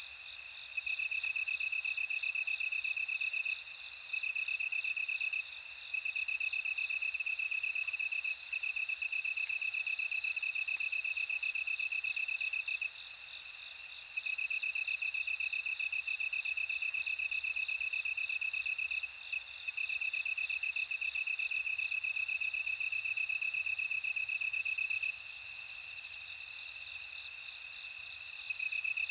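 Bell crickets singing: two overlapping pulsed trills at different pitches, a lower one that breaks off and resumes every few seconds and a higher, ringing one that comes and goes.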